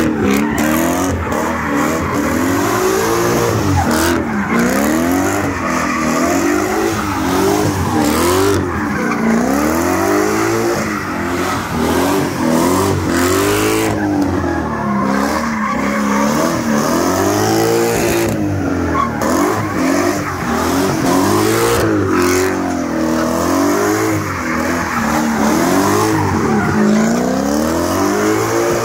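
BMW E30 drift car's engine revving up and down in repeated swells, about one every second or two, as it drifts in circles, with its rear tyres screeching as they spin and smoke.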